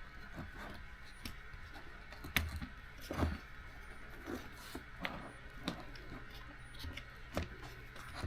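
Scattered small clicks and knocks of small parts being handled and set down on a workbench, over a faint steady hum.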